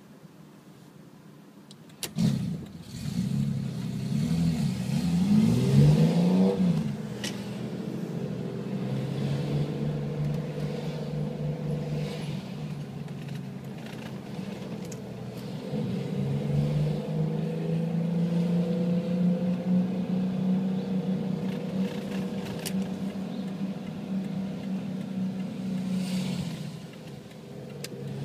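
Open-wheel race car's engine starting to rev about two seconds in, its pitch rising several times as it pulls away, then running steadily while cruising. It is heard from inside a following car.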